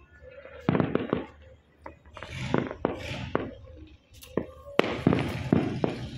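Firecrackers and fireworks going off across the neighbourhood: a string of sharp bangs and crackles, with a rushing hiss about two to three seconds in.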